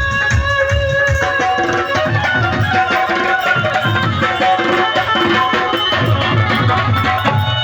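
Instrumental devotional music: hand drums playing a steady, quick beat under a sustained melody line of held notes.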